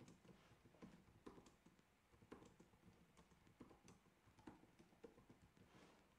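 Faint computer keyboard typing: irregular keystrokes as a short phrase is typed out.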